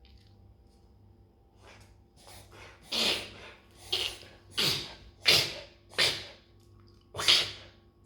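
An Australian Shepherd reverse sneezing: a run of quick, noisy, forceful inhalations that starts faint and turns loud about three seconds in, with about six loud gasps less than a second apart.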